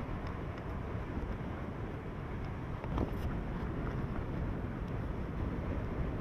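Super-typhoon wind blowing hard across the microphone: a steady, low rumbling wind noise with the hiss of the storm over a wind-torn sea, and a brief crackle about three seconds in.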